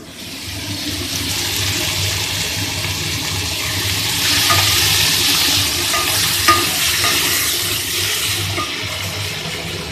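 Soaked chickpeas and dried peas sizzling in hot oil and tomato-onion masala in a non-stick pan. The sizzle swells over the first second as they go in, then continues as they are stirred and turned with a wooden spatula. There are a few light taps of the spatula on the pan.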